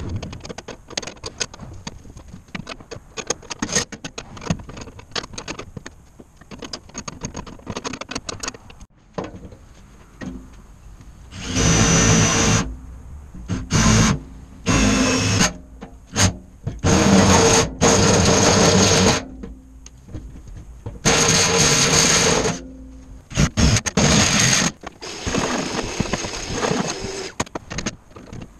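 A cordless drill/driver running in about seven short bursts of one to a few seconds each, driving bolts into unistrut channel framing. Before the bursts there is a run of light clicks and taps of metal hardware being handled.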